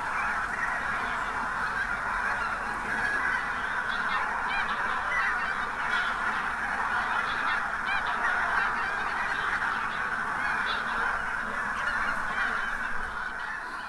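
A large flock of geese honking all together in a dense, continuous chorus that begins to fade out right at the end.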